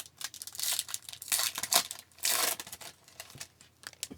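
Plastic wrapper of an Upper Deck hockey card pack being torn open and crinkled by hand, in several short rustling bursts.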